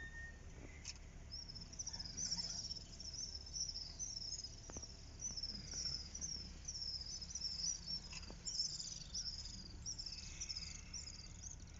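Repeated high-pitched chirping from a small wild animal, starting about a second in and going on steadily, over a low steady rumble. A few faint clicks are heard.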